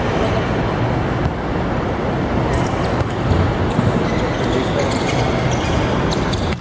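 Indoor volleyball match ambience in a large hall: a steady, loud din with players' voices. A few sharp slaps of the volleyball being served and played come in the second half.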